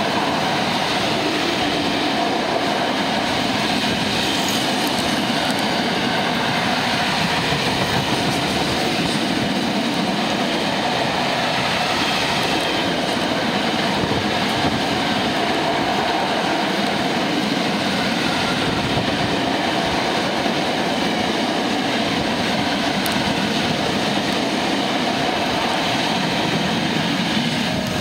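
Long freight train of open-top wagons passing close by at speed: the steady, loud noise of wagons and wheels running over the rails, unbroken throughout.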